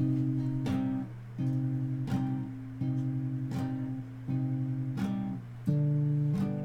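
Guitar strummed in chords without singing, a fresh strum roughly every two-thirds of a second, the chord changing as it goes.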